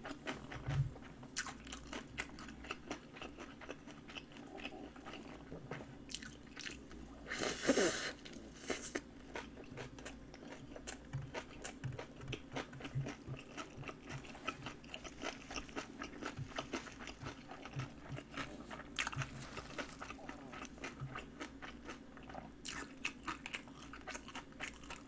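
A person chewing and crunching mouthfuls of spicy napa cabbage kimchi close to the microphone, with many small wet crunches and a louder burst of noise about eight seconds in.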